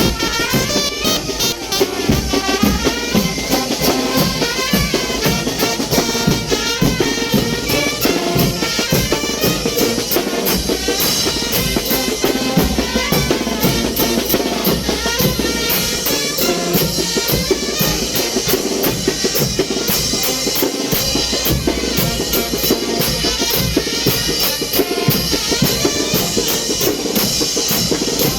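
Mexican wind band playing brinco music for chinelo dancers: the bass drum, snare and cymbals keep a fast, steady beat under the brass and clarinet lines.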